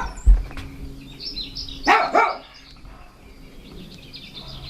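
A dog barking, a short bark at the start and another pair about two seconds in, with a low thump just after the first.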